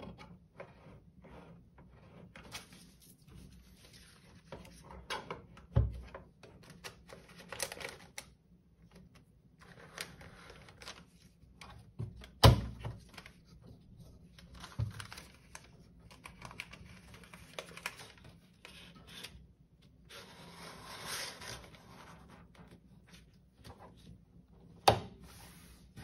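Handling noises from loading a roll of paper labels into a desktop label printer: plastic clicks and knocks from the roll holder and guides, with rustling and sliding of the label paper. The sharpest knock comes about halfway through, with others about six seconds in and near the end.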